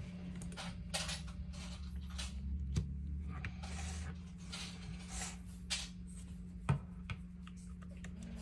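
Irregular small clicks, taps and rustles of objects being handled, with a sharper tap about three seconds in and a louder one near seven seconds, over a steady low electrical hum.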